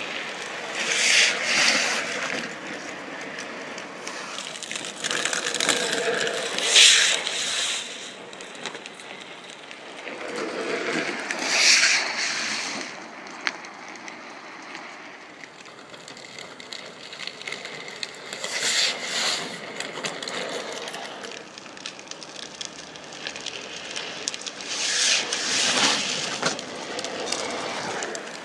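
Drift trike's hard plastic rear wheels sliding and scraping on asphalt: five swells of rough hiss, each rising and fading over a second or two, as the trike skids past.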